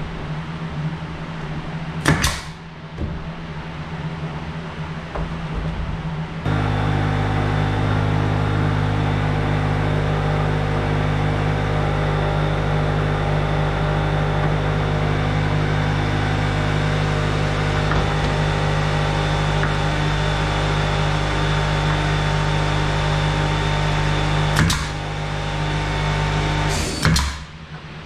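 Pneumatic nailer firing into tongue-and-groove pine ceiling boards: one sharp shot about two seconds in and two more near the end. In between, an air compressor kicks on suddenly about six seconds in and runs with a loud, steady hum, recharging the nailer's air supply.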